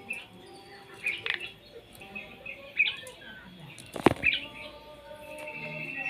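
Caged Asian pied starling (jalak suren) giving short, scattered calls, with a sharp thump about four seconds in. Near the end a steady high-pitched call starts and grows louder.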